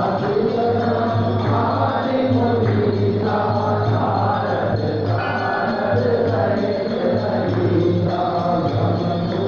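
Devotional chanting: voices singing a religious chant together over a steady low drone.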